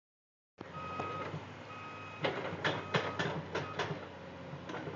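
Construction machinery working: a steady low engine hum, a reversing alarm beeping twice, then a run of about six sharp bangs in a second and a half.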